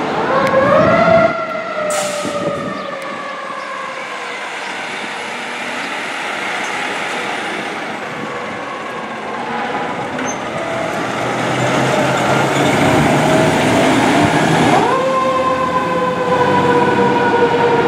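Fire truck siren winding up quickly and then slowly sinking in pitch, twice: once at the start and again about fifteen seconds in. Truck engine noise sits underneath.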